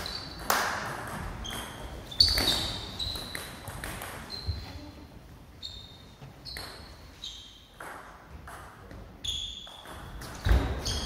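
Celluloid-type table tennis ball clicking off bats and table, each hit with a short high ping, in irregular groups with pauses between points, in a gym hall.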